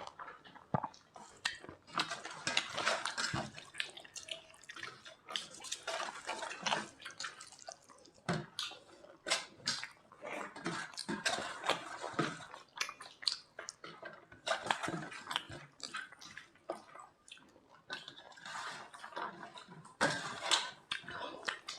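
Wet eating sounds from people eating dal and egg curry: irregular squelches, clicks and smacks of scooping, mixing and chewing the food.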